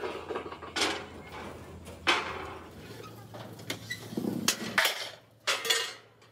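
Bent sheet-steel channel pieces being set down on steel I-beams: half a dozen metallic clanks at uneven intervals, each ringing briefly.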